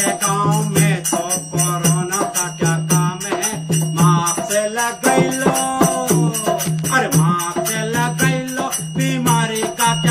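A man singing a self-composed folk song about wearing masks against corona, accompanied by regular dholak drum strokes and steady jingling percussion.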